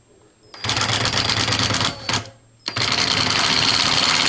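Impact driver hammering a screw tight into the washer's drum assembly. It runs in bursts: about a second of hammering, a short burst past two seconds, then a steady run from near three seconds on.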